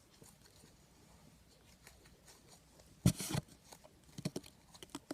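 Hands kneading slime mixed with kinetic sand on a counter. It is faint at first, then a sudden loud handling noise about three seconds in, followed by scattered short clicks and crackles.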